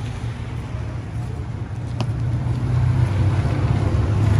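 Steady low rumble of a motor vehicle engine running, getting somewhat louder toward the end, with a single sharp click about two seconds in.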